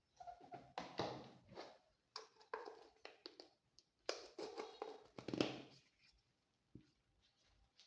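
Faint handling noises: scraping, rubbing and light taps in several short bursts, which stop about six seconds in.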